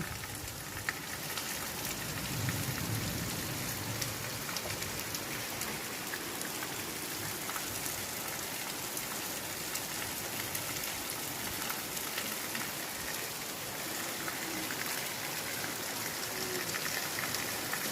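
Heavy rain falling steadily, with scattered sharp drop hits.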